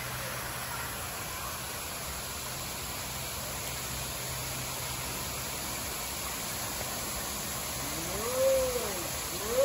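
Steady rush of water pouring from a pool's rock waterfall and water-slide outflow. Near the end a child calls out once, the voice rising and then falling.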